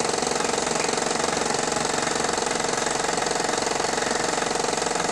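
Mamod SP1 toy steam engine running steadily on live steam with a fast, even exhaust beat, driving a Wilesco toy workshop's drill press and grinding wheels through spring belts with ease.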